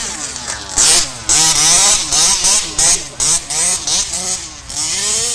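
The 26 cc two-stroke engine of a 1:5-scale RC buggy, revved hard and let off again and again while driving off-road, its pitch rising and falling several times a second.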